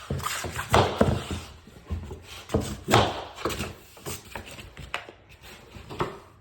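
A handful of irregular knocks on laminate flooring planks as a freshly locked plank is smacked down into place, the loudest about three seconds in.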